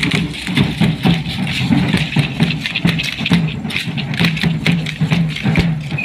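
Village brass band playing a traditional dance tune: a tuba pumps a repeating bass line under drum-kit hits. Many sharp clicks and rattles from the dancers' percussion run through it.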